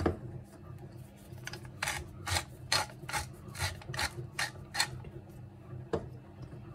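Hand pepper mill grinding black pepper: a run of about nine even grinding strokes, a little over two a second, starting about a second and a half in.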